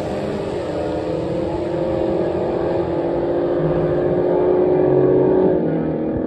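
Drag race car accelerating hard down the strip. The engine's pitch climbs and dips at two gear changes, about half a second and three seconds in. Its sharper top end fades as the car pulls away, and the engine drops off near the end.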